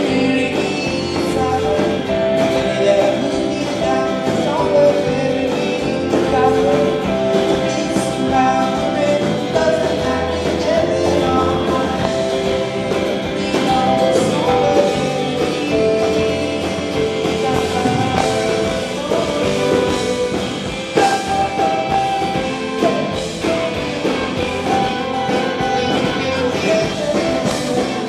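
Indie rock band playing live: electric guitar, keyboard and drums, with a man singing lead into the microphone.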